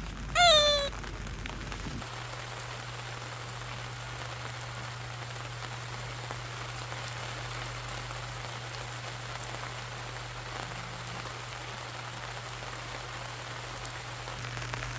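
Steady rain falling, an even hiss throughout. About half a second in comes a short, high-pitched cry that falls slightly in pitch. A low steady hum sets in about two seconds in.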